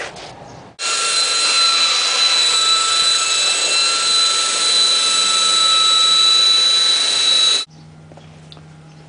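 Electric belt sander running on the wooden door framing, grinding off leftover glue and paneling remnants: a steady high whine over a loud hiss that starts about a second in and cuts off suddenly near the end.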